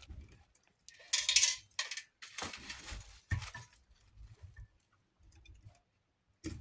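A few short bursts of metallic clinking and rattling, the loudest about a second in, then fainter clinks.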